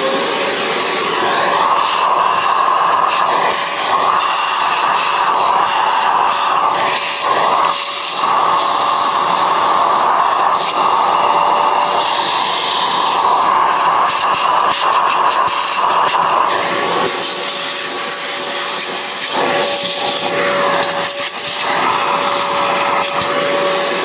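Vacuum cleaner running with a steady whine and hiss as its hose nozzle sucks old coffee grounds out of a grinder's open burr chamber, with occasional clicks as bits of debris or the nozzle knock against the metal.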